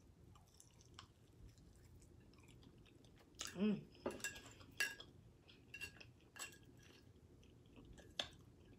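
Quiet, close-up eating sounds: chewing with sharp wet mouth clicks and smacks scattered through, and a brief hum about three and a half seconds in.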